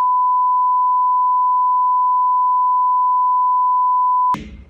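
A steady, pure electronic beep at about 1 kHz, a test-tone sound effect laid over a video-glitch transition. It holds one unchanging pitch and level and cuts off abruptly near the end, leaving faint room noise.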